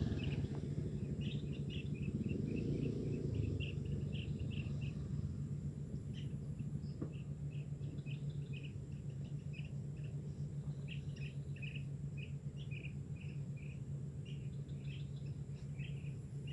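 Outdoor ambience: many short, high chirps in quick irregular clusters, over a steady low hum.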